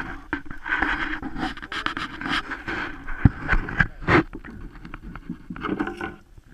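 Irregular clicks, knocks and scrapes from handling a trim board and a tape measure at a miter saw, with two louder knocks in the middle.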